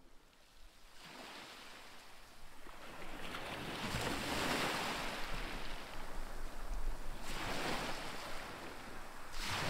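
Small waves washing up onto a sandy shore and drawing back: a long surge swelling and fading in the middle, then two shorter surges near the end.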